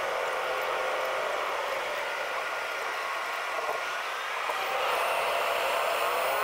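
Airliner cabin noise during the takeoff roll, sped up about tenfold so it sounds high and thin with no low rumble. A rising whine comes in near the end as the aircraft accelerates.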